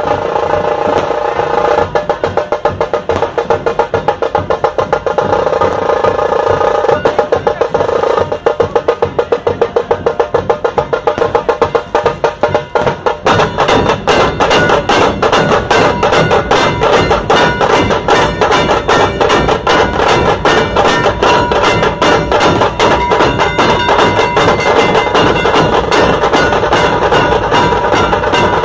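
Maharashtrian dhol-tasha troupe drumming: large barrel dhol drums beaten with sticks under the fast, sharp strokes of tasha drums, in an unbroken rapid rhythm. About halfway through the drumming grows denser and fuller.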